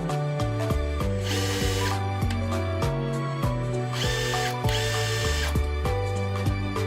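Makita DTD170 cordless impact driver's motor run three times in short bursts, each about a second or less, spinning up with a high whine; a test run after the tool's faulty controller was replaced. Background music plays throughout.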